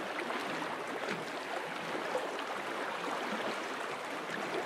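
Water rippling and lapping along the bow of a Novacraft Prospector canoe as it is paddled through calm lake water: a steady wash with small splashes and ticks.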